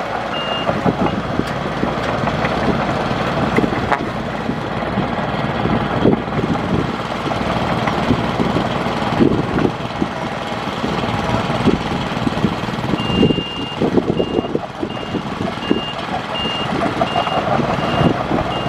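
Heavy earthmoving machinery running, with scattered knocks and clanks, and a reversing alarm beeping steadily about twice a second, heard briefly at the start and again from about two-thirds of the way through.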